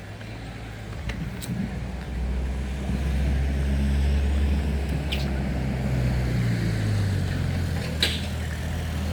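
A motor vehicle's engine running, a steady low hum that gets louder about two to three seconds in, with a few sharp clicks, the loudest near the end.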